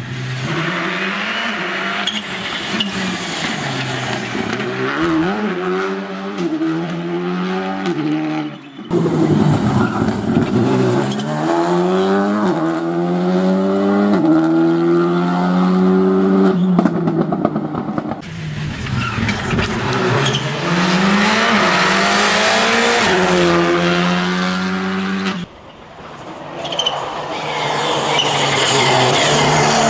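Rally cars on a dirt stage passing one after another, engines revving hard and climbing in pitch with a drop at each gear change. The sound breaks off abruptly twice as one pass gives way to the next.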